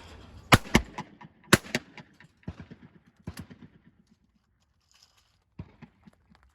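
Shotgun shots: two quick pairs of reports about a second apart, then a single shot a little over three seconds in, followed by light clicks and ticks.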